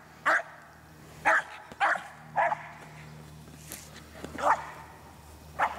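American Eskimo dog barking, about six short, sharp barks spaced a second or so apart.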